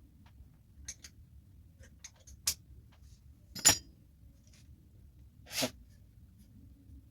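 Handling noise from a repair bench: a few light clicks, then one sharp, loud knock about three and a half seconds in, and a short scrape about two seconds later.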